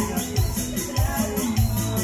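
Latin dance music played by a band, with a steady thumping bass beat, a fast shaker-like rhythm on top and a melody line.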